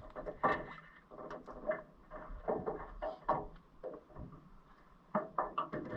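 Irregular knocks, clicks and rattles of fishing gear in an aluminum boat as a fish is reeled in and netted.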